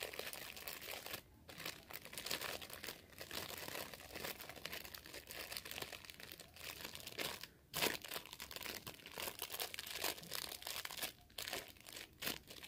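Clear plastic packaging crinkling and crackling as a small squishy toy is pushed back into it, with one sharper crackle about eight seconds in.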